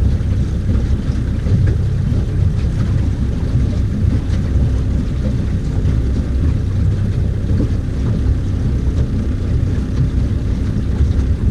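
Boat motor running steadily at low speed, with wind buffeting the microphone.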